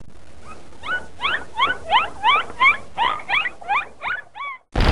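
Dolphin sound effect: a run of about a dozen quick, squeaky rising whistles, about three a second, over a faint hiss. A loud burst of noise breaks in at the very end.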